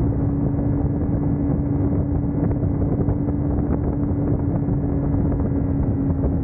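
Kawasaki Ninja motorcycle engine running at a steady speed, its note held level, under heavy wind rush on the microphone.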